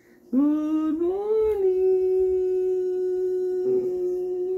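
A person's voice drawing out "good…" as one long sung note in a coaxing, sing-song way. It swoops up about a second in, then holds steady for about three seconds.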